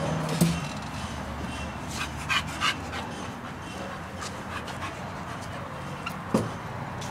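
Pit bull terrier making a few short sounds: two close together a little over two seconds in, and a sharper one near the end.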